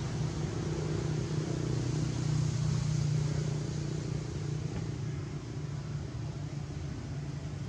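A steady low droning hum, like a motor vehicle's engine running, a little louder about two to three seconds in and easing off after about five seconds.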